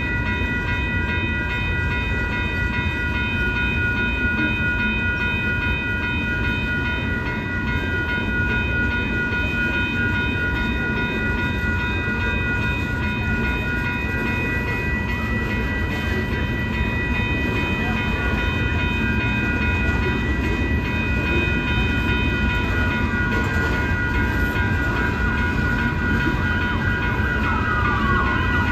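Union Pacific rock train's hopper cars rolling slowly over a grade crossing, a steady low rumble, with several steady high ringing tones from the crossing warning bells above it. Near the end a siren starts to wail, its pitch falling.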